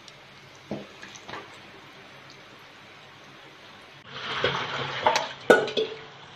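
Chicken kola urundai deep-frying in oil in a pan, the oil sizzling and bubbling around the balls. It is faint at first, with a couple of soft knocks about a second in. From about four seconds in the sizzle is louder, with two sharp knocks.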